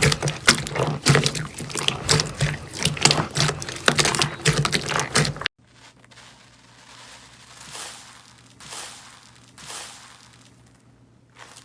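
Slime being squeezed and worked by hand: a dense run of wet clicks and crackles that cuts off abruptly about five seconds in, followed by a much quieter stretch with three soft squishes.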